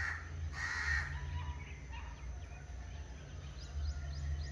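Birds calling: two harsh, hoarse calls in the first second and a few quick, high rising chirps near the end, over a low steady hum.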